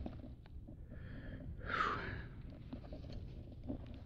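A man breathing close to the microphone, with one louder breath about two seconds in.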